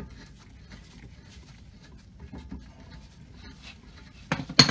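Small irregular metal clicks and rattles of a hand wrench turning a brake caliper bolt out, then two sharp metallic clanks near the end.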